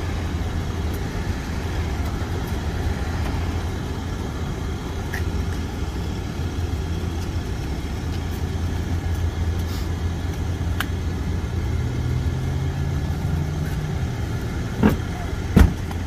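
A vehicle engine idling steadily, with its pitch rising briefly and settling back about twelve seconds in. Two sharp knocks come close together near the end.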